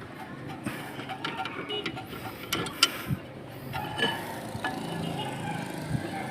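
Scattered metallic clicks and knocks of hand tools working on a car's front disc brake caliper, with one sharper knock about three seconds in.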